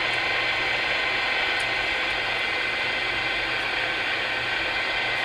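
Unidentified interference received on a CB radio's AM channels and heard through the radio's speaker: a steady, harsh buzzing hiss with several unchanging whining tones running through it.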